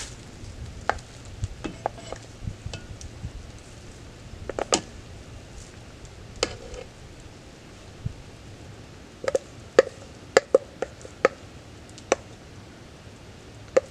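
A wooden spoon scraping soda bread dough out of a stainless steel mixing bowl into a baking pan, with scattered knocks and a quick run of sharp taps on the bowl's rim a little after nine seconds in, some ringing briefly.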